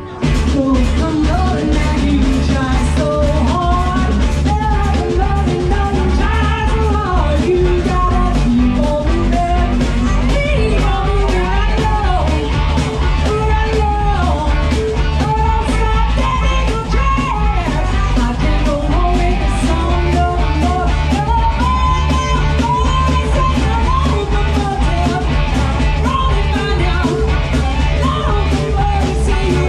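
Live rock band playing with a steady beat: drums, bass guitar, electric guitar and keyboards.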